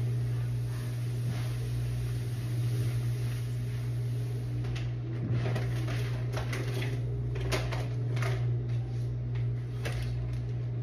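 A steady low hum under clicks and knocks of things being handled in kitchen cabinets and on the counter, the knocks coming thicker from about five seconds in.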